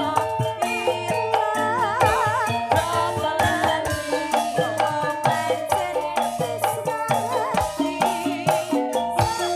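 Live campursari music: a steady drum rhythm under a melody whose high notes waver with vibrato.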